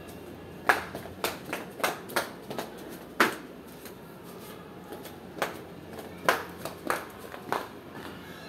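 Footsteps going down concrete stairs: a run of sharp, uneven steps, about two a second, with a few louder ones near the start and the end.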